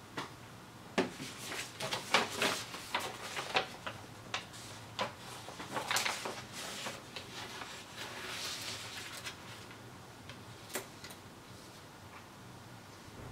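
Desk handling noises: a run of sharp clicks and taps in the first few seconds, then the paper instruction sheet rustling as it is lifted and turned over, and a couple of lone clicks near the end.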